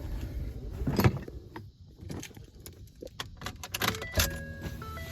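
A jangle of loose metal and a run of clicks and knocks, thickest around three to four seconds in. Then a steady whine with several tones starts near the end.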